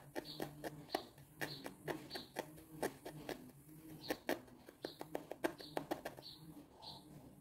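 Felting needle repeatedly stabbing loose wool fibres into a crocheted amigurumi, making small irregular clicks about two or three a second.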